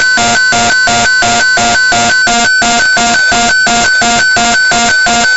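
Emergency Alert System electronic alert tone: a loud, buzzy beep alternating rapidly and evenly between a high and a low note.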